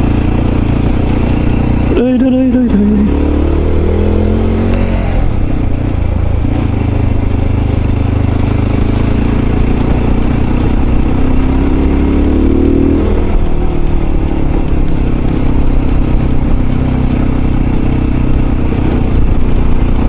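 Mondial RX3i Evo's 250 cc single-cylinder engine running as the bike rides a rough dirt track, over a steady rush of wind and road noise. The engine picks up revs briefly about two seconds in and again about twelve seconds in.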